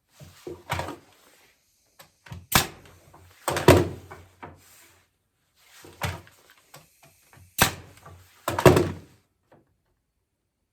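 Walnut chair slats being shifted and set down against one another on the bench: a series of irregular wooden knocks and thunks.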